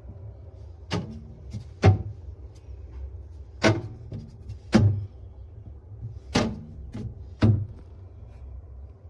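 A series of sharp knocks and clunks, about six louder ones roughly a second apart with a few fainter ones between, over a steady low hum.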